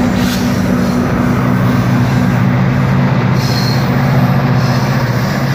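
GO Transit diesel commuter train passing close by: a steady, loud low engine drone over a rumble of wheels on track, its pitch dropping to a lower steady note about a second and a half in.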